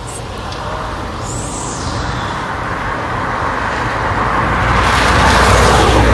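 A vehicle driving past on a rain-soaked road, its tyre hiss through the water swelling to a peak near the end and then fading, over steady rain.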